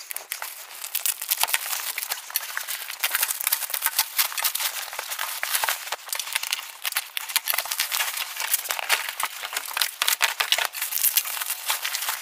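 Plastic packaging crinkling and rustling in dense crackles as a parcel is unwrapped and a padded gun bag is pulled out of its clear plastic wrapping. It is softer for about the first second, then keeps up steadily.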